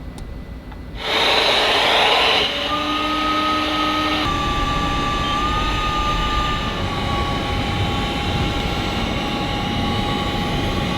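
Automatic window-cleaning robot powering up: its suction fan rushes loudly about a second in, then settles into a steady run with a high motor whine.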